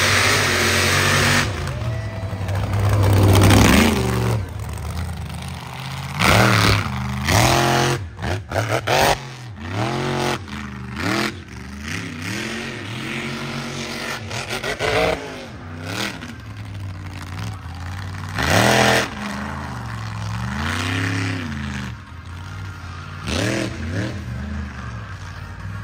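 Mega truck engine revving hard in repeated blips over a steady low idle. Each rev climbs and falls in pitch, about eight times, with the loudest push near the start.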